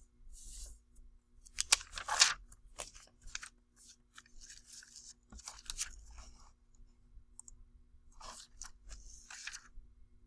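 Notebook paper being handled and rustled, with a page of a spiral notebook turned and a loose sheet shifted on it, in short irregular bursts; the loudest comes about two seconds in.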